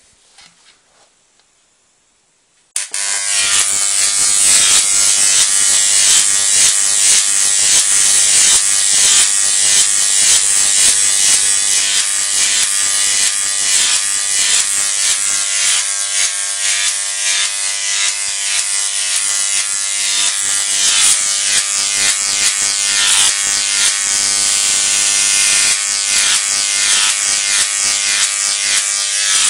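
High-voltage electric arc buzzing and crackling loudly between the wire rods of a Jacob's ladder fed by a flyback transformer. It starts suddenly about three seconds in and then runs steadily, with a constant whine and hum under the crackle.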